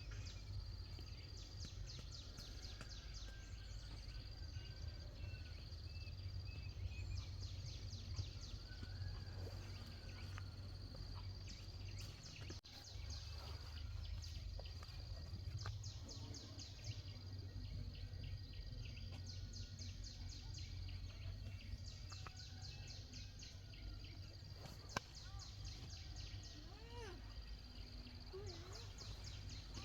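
Rural outdoor ambience: high chirping trills that come in short repeated bursts over a thin steady high whine, a few short rising-and-falling calls near the end, and a steady low rumble underneath.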